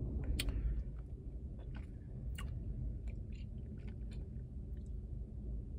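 Mouth sounds of someone eating frozen yogurt: scattered lip smacks and small wet clicks, over a steady low hum inside a car.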